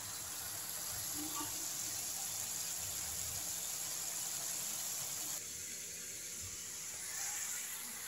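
Ground pork frying in a wok, a steady sizzling hiss that eases slightly about five seconds in.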